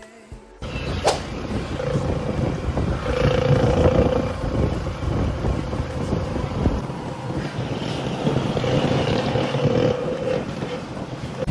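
Engine and road noise of a motor vehicle, heard from a passenger riding in it. The engine tone rises and falls, and there is one sharp click about a second in.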